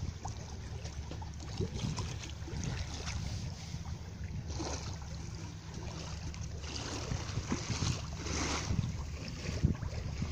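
Wind buffeting the microphone over water washing and splashing along a sailboat's hull under sail, with a few louder swishes of water from about halfway through.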